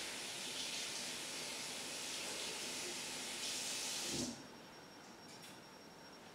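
Tap water running at a sink while hands are rinsed, a steady hiss that stops suddenly about four seconds in with a soft knock as the tap is shut off.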